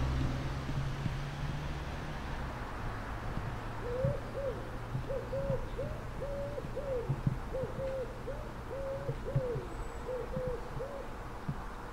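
A bird cooing: a string of low, hooting notes in short repeated phrases, starting about four seconds in. A low rumble fades out over the first two seconds.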